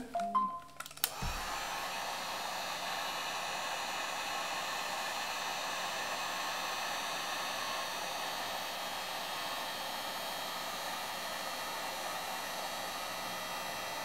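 Handheld heat gun switched on about a second in and blowing steadily, melting glue-stick adhesive under an iPad home button bracket.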